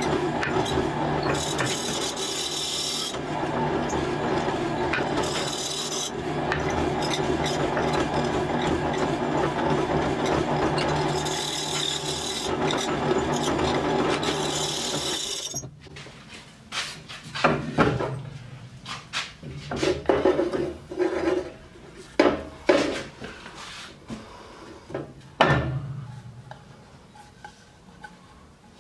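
Hollow chisel mortiser running and plunging its square chisel bit into a block of wood: a steady motor hum under a continuous rasping cut. About halfway through the machine stops, followed by scattered knocks of the wood block being handled.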